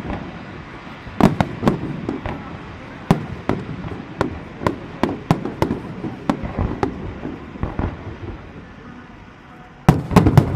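Fireworks display: aerial shells bursting in irregular loud bangs and cracks, thinning out for a couple of seconds before a dense, rapid volley of bangs near the end.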